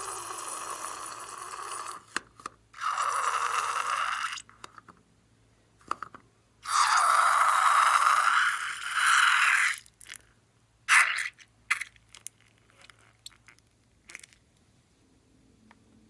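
Slime being squeezed and worked by hand, giving three long crunching, crackling stretches, then a few short scattered pops and clicks.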